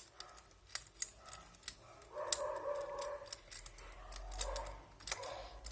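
Irregular sharp plastic clicks from a fidget cube being fiddled with in the hands, with a longer, noisier stretch of handling about two seconds in.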